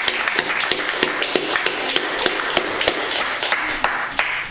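An audience applauding, with sharp, loud single claps close by standing out above the crowd's clapping. The applause dies away near the end.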